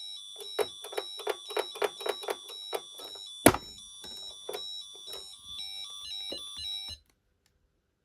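High-pitched electronic alarm tone from a 1990s Pyronix Paragon Super intruder alarm system, stepping between two pitches, over a quick run of taps and one loud knock about three and a half seconds in. The tone cuts off suddenly about seven seconds in.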